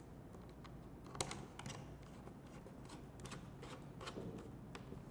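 Small precision screwdriver turning a screw into a battery plate, giving faint, irregular clicks and ticks.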